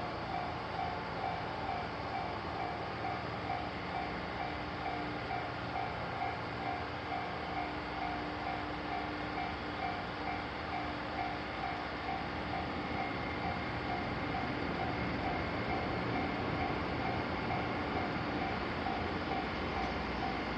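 Level-crossing warning bell ringing in a steady, evenly repeating beat, over the continuous rumble of a train running through the crossing. The train noise grows a little louder in the second half.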